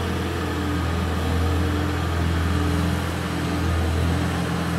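An engine running steadily with a low hum, heard from inside a car's cabin.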